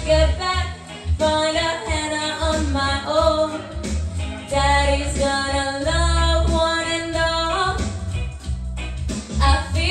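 A woman singing a song into a microphone, her sung notes held and gliding, over an instrumental accompaniment with low sustained bass notes.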